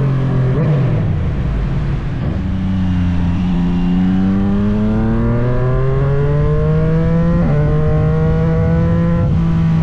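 Motorcycle engine under way. The revs fall just under a second in, then climb steadily for several seconds while it pulls through a gear. They step down at a gear change about seven and a half seconds in, then hold.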